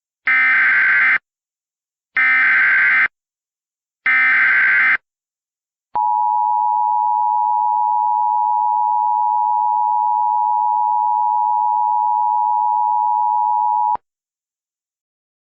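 Emergency Alert System tones: three one-second bursts of SAME digital header data, about two seconds apart, then the two-tone EAS attention signal (853 and 960 Hz), held steady for about eight seconds. They open a Flash Flood Emergency alert.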